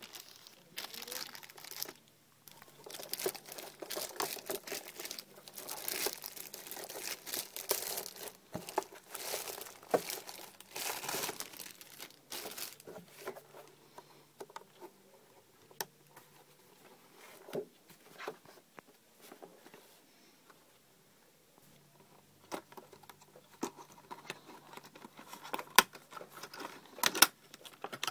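Clear plastic wrapping on a boxed e-reader cover being handled and pulled open, crinkling and crackling steadily for about the first twelve seconds, then in scattered crackles, picking up again near the end with a few sharp snaps.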